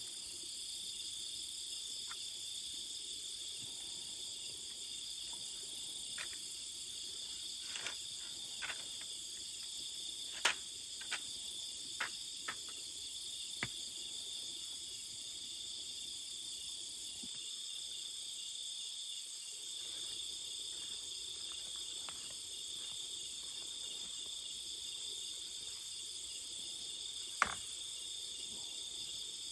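A steady, high-pitched chorus of insects, unbroken throughout, with about ten scattered sharp clicks or knocks, most between about six and fourteen seconds in; the loudest come about ten seconds in and near the end.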